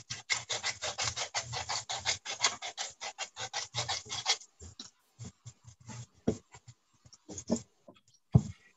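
Hand salt and pepper grinders twisted over the pan: a fast rasping crackle of grinding that thins to scattered clicks after about four seconds.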